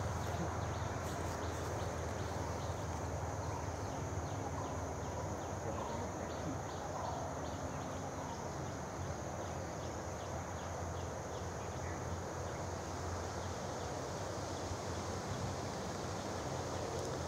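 Insects droning steadily, with a run of quick repeated chirps through roughly the first half, over a steady low hum.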